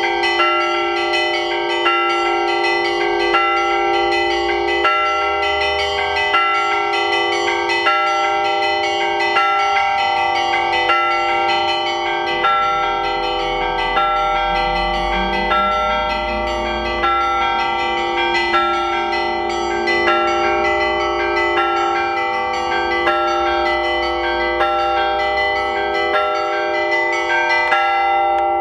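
Russian Orthodox church bells ringing together: several bells of different pitch struck over and over in a steady rhythmic peal, their tones ringing on and overlapping. It is the ringing that calls the faithful to the evening service.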